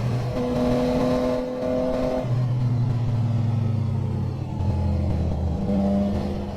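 Motorcycle engine running under way, its pitch dropping in steps about two seconds in and again around the middle.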